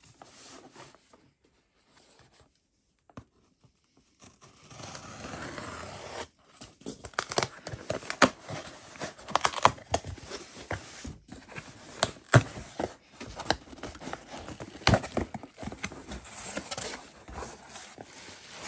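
Packing tape being peeled and torn off a cardboard shipping box, with the cardboard flaps scraping and snapping as they are pulled open. After a few nearly quiet seconds of handling, a rasping tear comes, then a run of sharp snaps and clicks.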